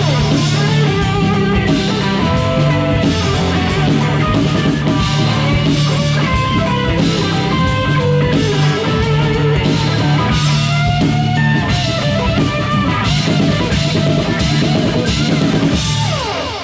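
Live band playing a rock song on guitar, bass and drum kit. The music stops near the end.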